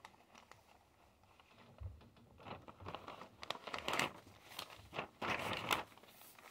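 Paper pages of a spiral notebook rustling and crinkling as they are handled and turned, with the rustling busiest in the second half and a single low bump about two seconds in.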